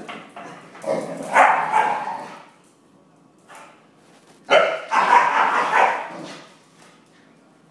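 Two dogs, a Jack Russell terrier and a brown-and-white hound, play-fighting with loud, rough barking. The barking comes in two bouts of about two seconds each, the second starting a little past halfway.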